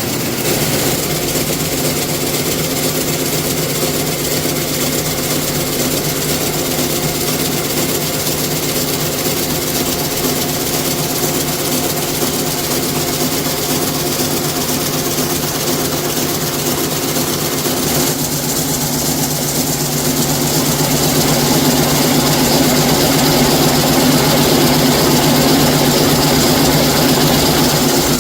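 Zipper-making factory machinery running with a steady mechanical hum and whir. The sound shifts about two-thirds of the way through and is louder near the end.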